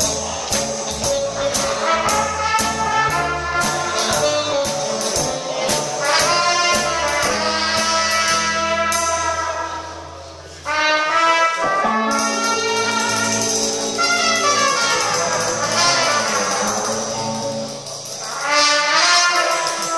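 Live jazz band with a brass section of trumpets and trombone playing over a steady drum beat. About halfway through, the music thins out and drops briefly, then the full band comes back in sharply.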